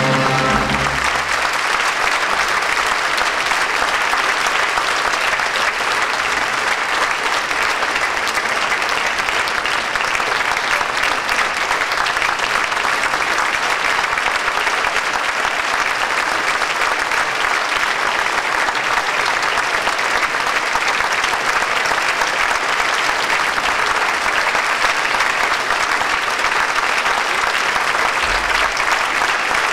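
Theatre audience applauding steadily. Sustained clapping follows the last chord of the music, which cuts off about a second in.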